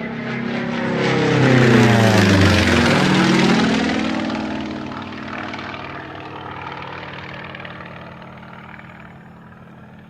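An aircraft flying past low: its engine note grows to its loudest about two seconds in, drops in pitch as it passes, then fades away.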